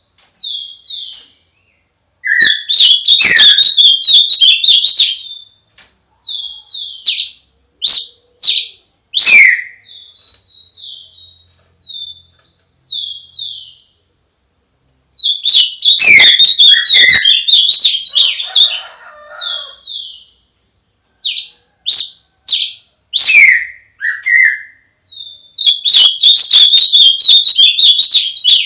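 Songbird singing close by: loud bursts of rapid chattering trills, each a few seconds long, alternating with short slurred whistled notes and brief pauses.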